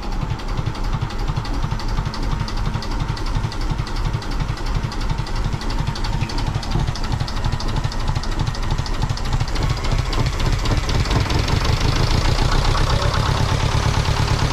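Small inboard marine diesel engine running with a fast, even knocking rhythm, just after its fuel line has been primed and the lift pump refitted with new gaskets. It grows louder and steadier about ten seconds in.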